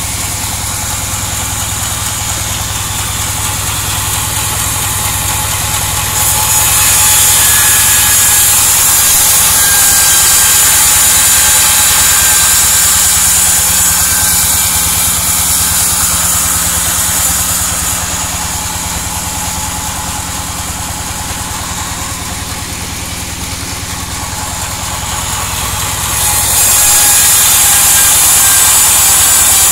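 Band sawmill running steadily with a low hum, its blade cutting lengthwise through an albasia log. The cutting adds a loud high hiss from about six seconds in for about twelve seconds, eases off, then starts again near the end.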